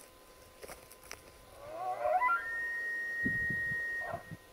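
Elk bugle: a rising glide that breaks into a long, high, steady whistle held for about a second and a half, with low grunting pulses under it before it stops.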